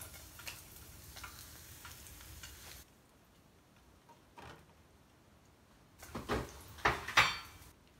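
Hot oil sizzling in a saucepan as a piece of fried fish is lifted out, with small ticks and pops; the sizzle stops abruptly under three seconds in. Near the end comes a cluster of loud knocks and clatter.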